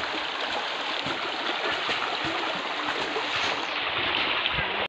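Steady, dense rustling and crackling noise without any clear tone or rhythm.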